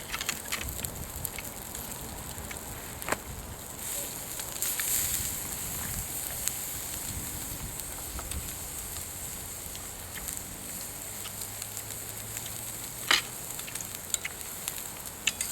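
Firewood fire crackling, with a steady hiss and scattered sharp pops; the loudest pop comes about thirteen seconds in.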